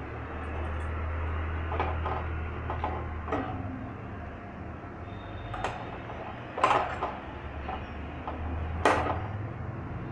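Metal tongs clicking and knocking against a gas stove's burner and pan support while a finger millet roti is turned over the open flame, over the burner's steady low rush. The clicks come irregularly, with two sharper ones in the second half.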